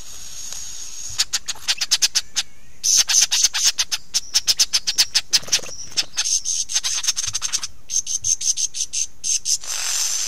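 Lyrebird singing at close range: several runs of rapid, sharp, clicking notes with short pauses between them.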